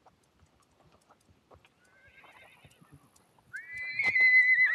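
A horse whinnying: a loud, high, wavering call that starts about three and a half seconds in and carries on. Before it, faint clip-clop of hooves at a walk.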